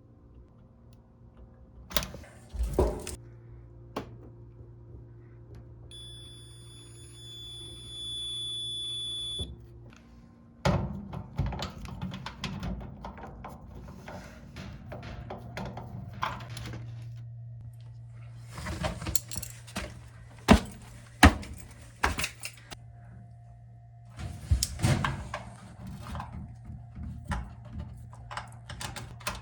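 Knocks, clicks and light metallic rattles of parts and tools being handled on an electric dryer during repair, with a steady low hum underneath. Several sharp knocks come in clusters near the start and again in the second half, and a steady high tone sounds for a few seconds in between.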